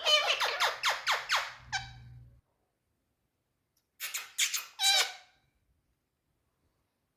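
Green parrot calling in quick runs of short, shrill squawks, each sliding down in pitch: about eight in the first two seconds, then a pause, then four more about four seconds in.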